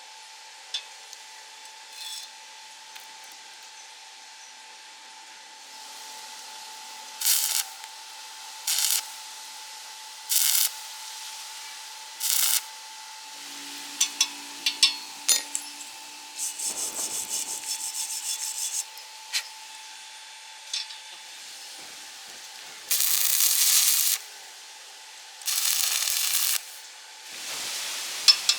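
A series of short scraping or rubbing strokes, each about half a second, then a rapid crackling patch and two longer strokes near the end, over a faint steady whine.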